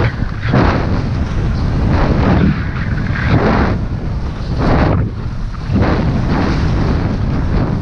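Wind buffeting the microphone of a skier's action camera during a fast descent, with the scrape of ski edges on packed snow swelling at each turn, about once a second.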